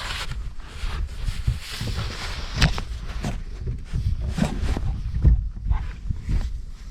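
Gusting wind buffeting the microphone with a low rumble, with scattered sharp clicks and knocks through it, the loudest about two and a half seconds in.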